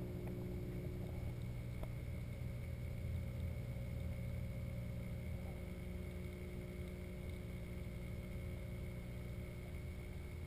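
Steady low hum of the saltwater aquarium's water pumps, with a few faint whining tones over it, heard underwater from inside the tank.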